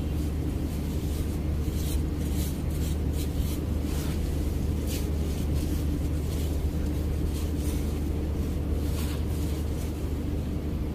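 Small hand trowel digging and scraping into sandy soil in irregular strokes, over a steady low hum.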